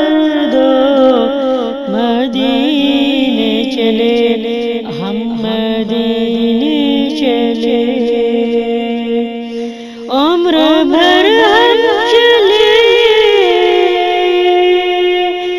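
A woman singing a naat, an Urdu devotional song in praise of the Prophet, in long ornamented phrases over a steady held drone. A new phrase starts about ten seconds in, after a short dip.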